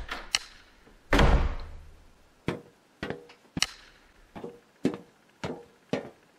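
A run of sharp knocks: a heavy thud with a long low rumble about a second in, then single knocks at a fairly even pace of about one every half second.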